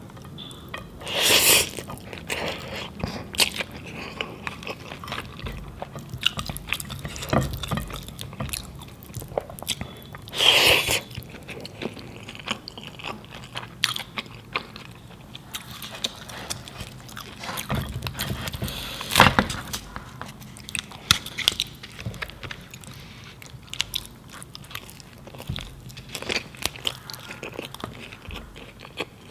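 Close-miked ASMR eating sounds: chewing mutton biryani and samosa eaten by hand, with many small wet mouth clicks and three louder crunching bites, a second in, about ten seconds in and near twenty seconds.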